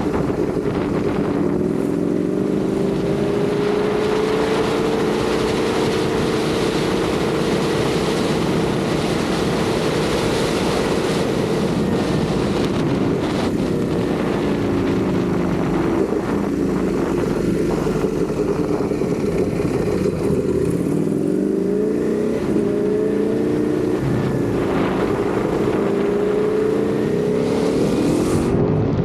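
Ducati Panigale V4 motorcycle's V4 engine running on the move, its revs climbing and dropping several times through the ride.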